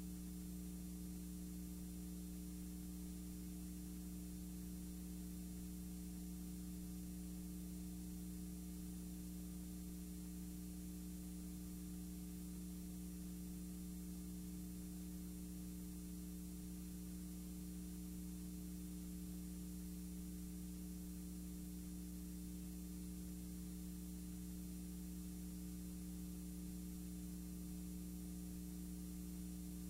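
Steady electrical hum with an even hiss underneath, unchanging throughout: the noise floor of the recording with no programme sound.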